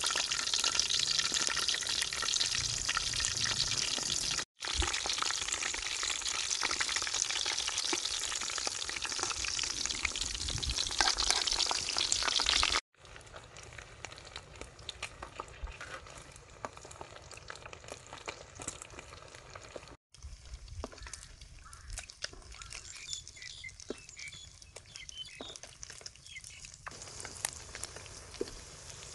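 Battered shrimp deep-frying in hot oil in a metal wok: a loud, dense sizzle for about the first thirteen seconds. After a cut it becomes a much quieter hiss with scattered pops and crackles.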